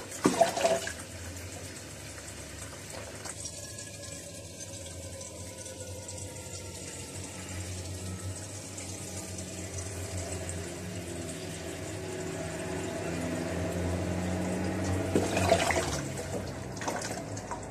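Water pouring in a thin stream from a pot into a plastic bucket, a steady splashing that grows slowly louder as it goes on. Sharp knocks just after the start and again near the end.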